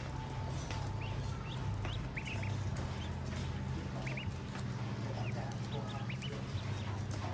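Newly hatched ducklings peeping: many short, high chirps scattered throughout, with a few light clicks, over a steady low hum.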